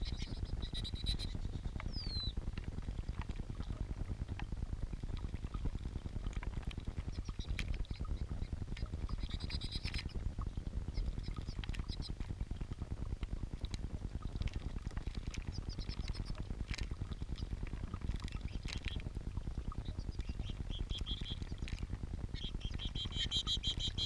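Water running and splashing in a small rock fountain as lesser goldfinches bathe in it right beside the camera, a steady low wash throughout. Short high bird chirps come now and then, with a quick run of repeated calls near the end.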